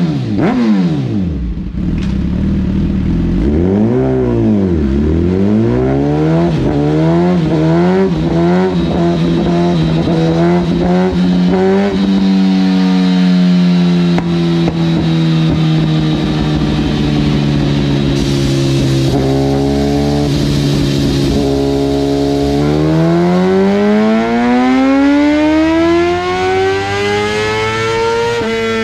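2017 Suzuki GSX-R1000's inline-four engine running through a Brock's Performance Alien Head exhaust on a dyno. It gives a quick run of throttle blips, then holds a steady raised rev for several seconds, then the revs climb gradually near the end.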